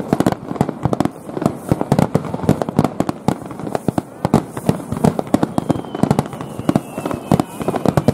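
Aerial firework shells bursting in a rapid barrage, a dense run of sharp bangs and crackles several times a second with no break.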